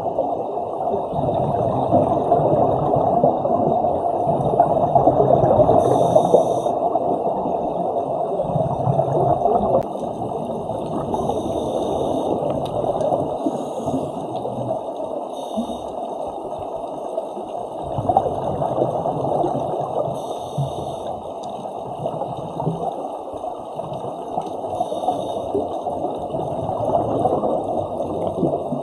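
Muffled underwater rushing and gurgling of scuba divers' exhaled bubbles, heard through a camera's waterproof housing, with a faint hiss that comes and goes every few seconds.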